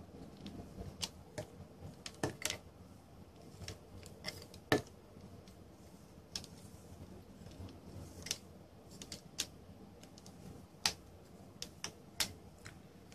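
Irregular sharp clicks and small snaps from alligator clips and wire leads being handled and clipped on, the loudest about five seconds in.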